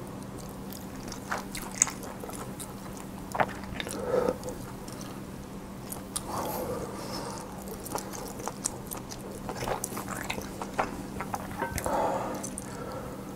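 A person eating close to the microphone: chewing and biting, with scattered small crunches and wet mouth clicks, over a faint steady hum.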